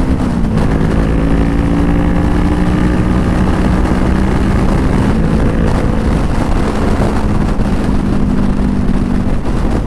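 Honda CBR500R's parallel-twin engine running at steady revs while riding, with wind and road rumble underneath. Its pitch drops a little just after the start, then holds level.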